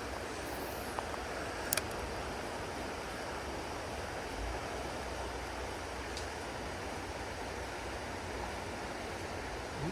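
Creek water running steadily, with one sharp click a little under two seconds in.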